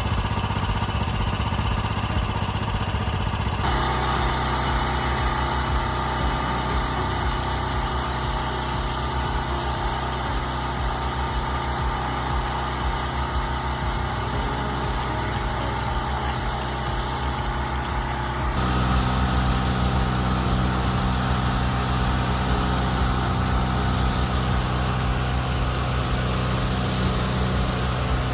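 Gas-powered pressure washer engine running steadily, getting louder and hissier about two-thirds of the way through.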